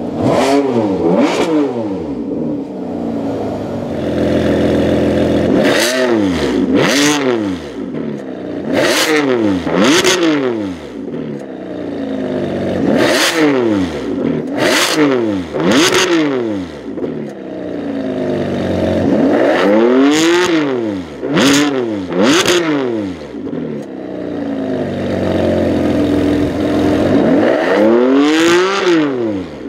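Ferrari 599 GTB Fiorano's 6.0-litre V12 revved from idle in repeated quick blips. Each one rises and falls sharply, often two or three close together, with short stretches of steady idle between.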